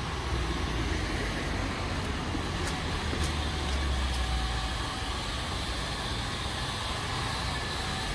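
Road traffic on a city street: a steady hum of passing cars, with a low rumble that is stronger in the first half.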